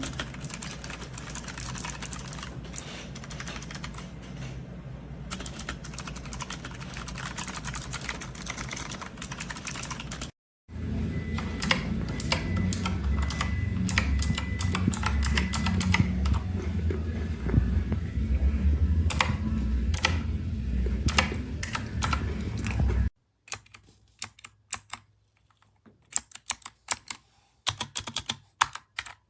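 Typing on a Razer Huntsman Mini 60% keyboard with clicky optical switches: a dense, uneven run of key clicks. The sound cuts off abruptly about ten seconds in and again about twenty-three seconds in. A loud low hum runs under the typing in the middle stretch, and the last stretch is quieter, with sparser, separate clicks.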